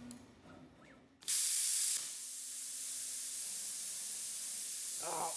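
Hypertherm Powermax 45 plasma torch blowing compressed air: a sudden hiss starts about a second in, loudest for under a second, then carries on steadily. It does not cut, because the ground clamp is not on the workpiece.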